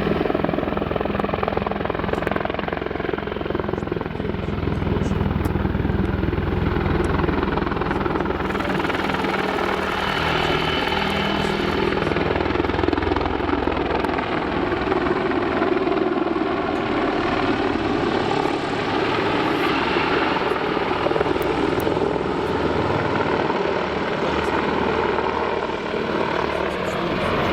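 Mi-28 attack helicopter running close by: the steady loud rotor and twin-turboshaft noise carries the whistle of its rotor blades, with a deeper low rumble swelling for several seconds early on.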